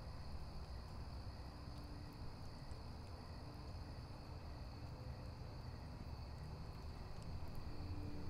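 Quiet night ambience: a steady high chirring of crickets over a low rumble, with faint held tones coming in about two and a half seconds in.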